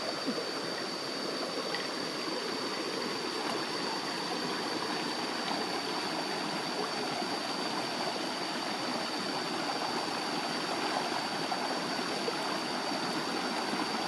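Shallow rocky stream rushing steadily over boulders in small cascades. A thin, steady high-pitched tone sits above the water.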